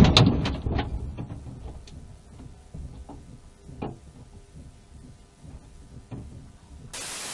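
Aftermath of a car crash picked up by a dashcam: the noise of the impact dies away over the first second or two, leaving faint scattered clicks and knocks. Near the end comes a short burst of static hiss.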